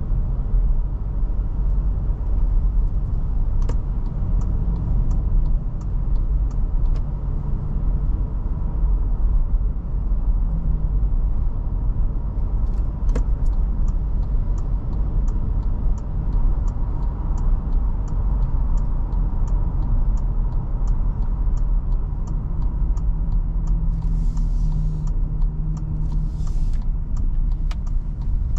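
Toyota Fortuner 2.7-litre petrol SUV on the move: a steady low engine and road rumble, with a regular light ticking about twice a second through most of it. Two short hisses come near the end.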